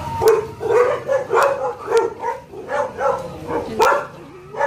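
A dog barking over and over in quick succession, about two to three barks a second, with a short lull near the end.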